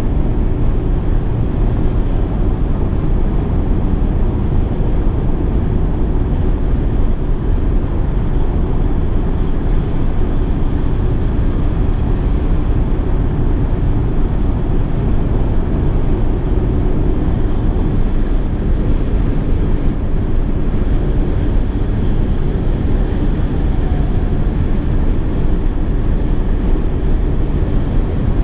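Steady, unbroken road and wind noise of a 2016 Mercedes-Benz E 220d estate being driven, a low rushing that stays level throughout.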